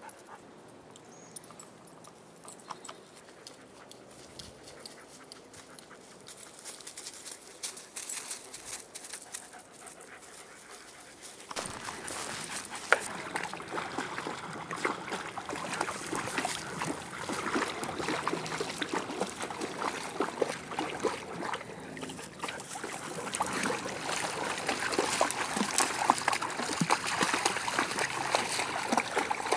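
Dogs wading and splashing in shallow lake water. Quiet at first, the sloshing and splashing rise suddenly about twelve seconds in and are busiest near the end.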